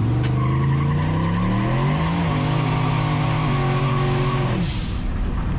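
Turbocharged LS V8 in a square-body truck accelerating hard from a roll through the gears, heard from the cab: the engine note climbs, drops at upshifts about two and three and a half seconds in, with a steady high whine over it. Near the end the throttle lifts, the engine note falls away and there is a short burst of hiss.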